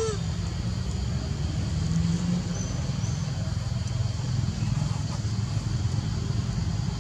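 A steady low rumble throughout, with one brief squeak from the baby macaque right at the start.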